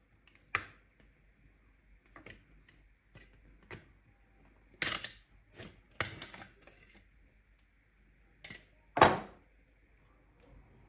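Scattered plastic clicks, snaps and knocks as a rusty scale model VW T1 bus is taken apart by hand, its body worked loose from the plastic chassis; the sharpest snap comes about nine seconds in.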